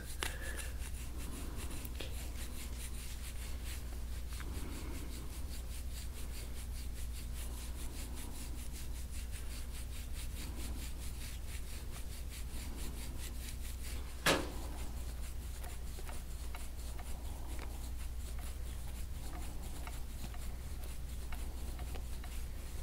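Fingertips rubbing and kneading the skin along the side of a neck in a faint, soft rubbing, over a steady low hum. One sharp click sounds about fourteen seconds in.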